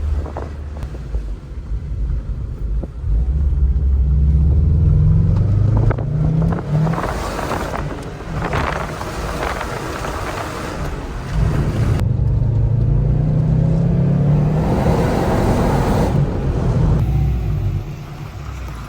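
2007 Subaru STI's turbocharged flat-four running through a MagnaFlow cat-back exhaust under hard acceleration. The engine note rises in pitch, then drops at a gear change, twice.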